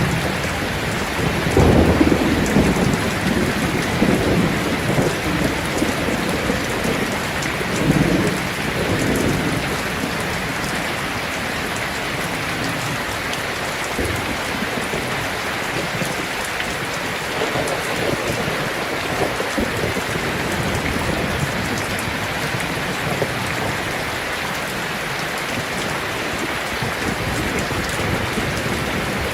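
Heavy rain falling steadily on a tin roof, with low rolls of thunder that swell about two seconds in and again near eight seconds, then die away under the rain.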